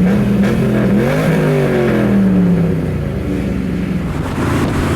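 Car engine accelerating hard, its pitch climbing through the gears, holding, then easing off and getting quieter about three seconds in.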